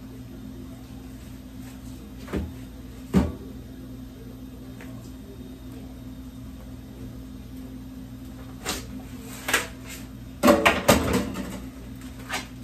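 Scattered sharp knocks and clatter of a knife and a foam tray of frozen meat being handled at a kitchen sink, with a quick run of several knocks about ten seconds in. A steady low hum runs underneath.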